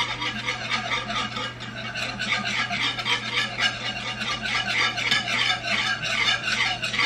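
Wire whisk beating a thin sour-cream and wine sauce in a nonstick skillet: quick, even swishing strokes with the wires scraping the pan bottom, as the sour cream is whisked in. A steady low hum runs underneath.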